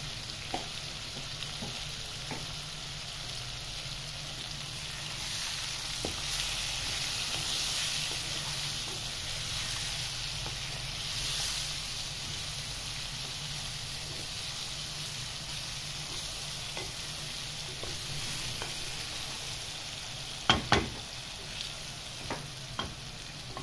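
Chicken karahi (chicken pieces and onions in oil) sizzling in a metal pan while a wooden spatula stirs it, with light scrapes and clicks of the spatula on the pan. A couple of louder knocks of the spatula against the pan come near the end.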